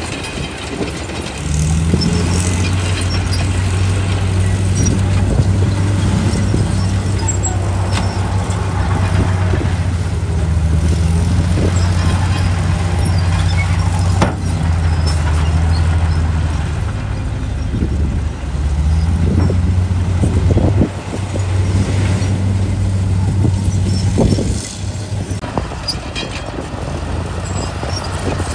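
Heavy diesel engine of earth-moving machinery running under load, a steady deep drone, with a few sharp metallic clanks. The engine note drops back several times near the end.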